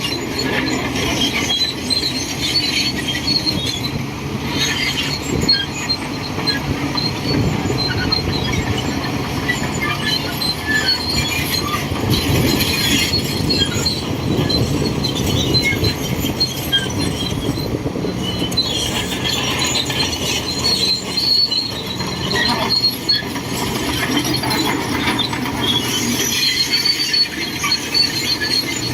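Shantui DH17C2 crawler bulldozer working, its diesel engine running steadily under load while the steel tracks squeal and clank in bursts that come and go.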